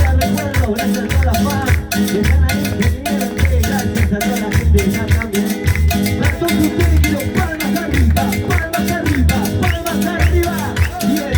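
Salsa music playing, with a low bass beat repeating a little more than once a second under busy, fast percussion and melodic lines.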